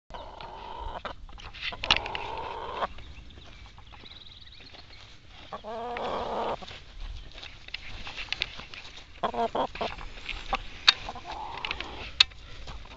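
Chickens clucking close by in several bursts, with a few sharp clicks among them.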